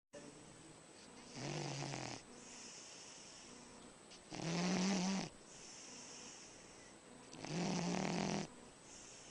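A sleeping animal snoring: three loud snores about three seconds apart, each carrying a low tone, with softer breaths between them.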